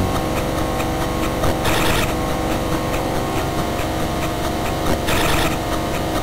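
A steady, harsh, mechanical-sounding drone from an animation soundtrack: a thick noisy rumble with a held hum underneath. Its hiss swells briefly twice, about two seconds in and near the end.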